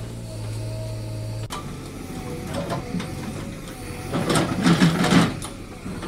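Field sound of a JCB backhoe loader's diesel engine running while its arm demolishes a small building, with voices of people nearby about four seconds in.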